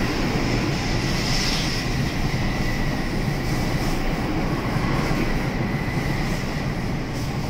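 N700S Shinkansen train pulling out of the station past the platform: a steady rush of wheels and running gear with a thin steady high tone over it, easing slightly near the end.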